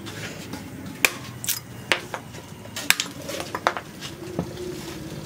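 Heavy chopping knife striking a wooden root log, roughly seven sharp chops at an uneven pace, about one every half second to second, as the top of the log is cut down.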